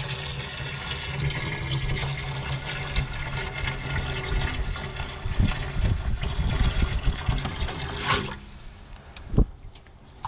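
Water poured in a steady stream from a plastic basin into the steel cauldron of a KP-125 field kitchen, splashing onto buckwheat; the pour stops abruptly about eight seconds in. A single knock follows near the end.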